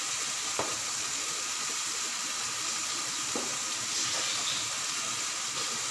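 Onion-tomato masala paste steadily sizzling in hot oil in a steel kadhai, with a couple of faint clicks.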